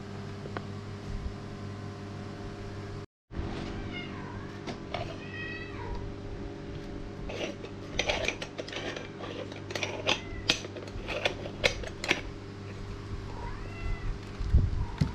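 A cat meowing a few times, each call rising and falling in pitch, over a steady low hum. A run of sharp clicks and clatter in the middle.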